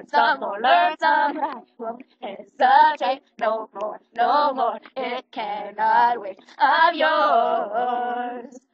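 Two girls singing together unaccompanied in short, high-pitched phrases with brief gaps, ending on a long wavering held note about two seconds before the end.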